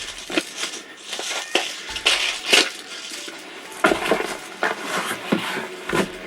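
Hard objects being handled and set down: a run of irregular knocks, clatters and light metallic clinks, with rustling in between.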